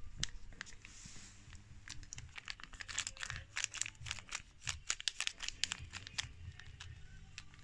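A foil wet cat-food pouch crinkling and rustling as it is squeezed out by hand onto a plate, with many small irregular crackles.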